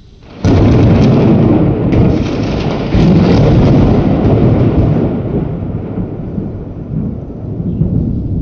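Thunder: a sudden loud crack about half a second in, a second burst of crackling near three seconds, then a rumble that slowly fades.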